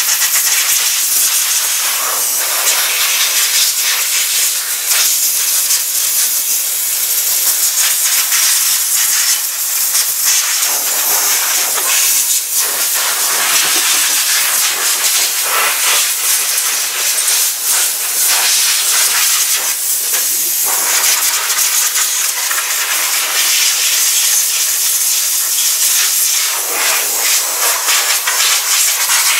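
Compressed-air blow gun hissing in a long, loud, steady blast, with small flickers as the nozzle moves, blowing dry fire-extinguisher powder off an engine block.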